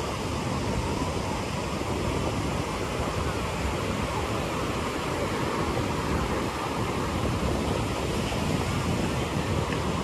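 Surf washing onto a sandy beach mixed with sea breeze buffeting the microphone, a steady wash of noise with no single events.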